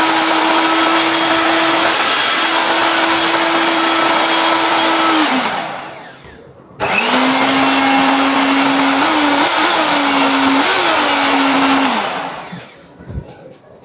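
300-watt Mignon electric hand mixer with wire whisks running unloaded in the air: a steady high motor hum that winds down about five and a half seconds in, then starts again at a slightly lower pitch after a short pause and winds down again near the end.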